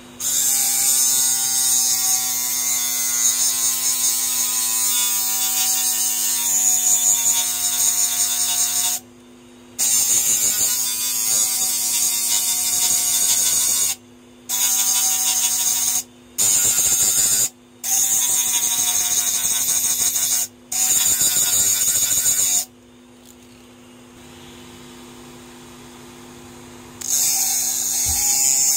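A steel snap-off utility knife blade grinding against sandpaper on a hard-disk platter spun by the drive's 5400 RPM spindle motor, throwing sparks: a loud, hissing grind. It stops for a moment several times and for about four seconds near the end as the blade is lifted, leaving only the motor's faint steady hum, then starts again.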